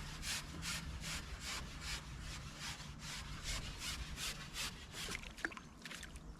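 Fast, even rubbing strokes, about five a second, from a carbon fishing pole being shipped back over a pole roller while a fish is played. The strokes stop with a sharp click a little after five seconds in.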